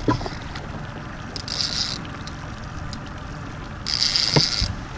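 Baitcasting fishing reel whirring in two short bursts, about a second and a half in and again near four seconds, under the pull of a hooked paddlefish. Wind and lapping water rumble low underneath.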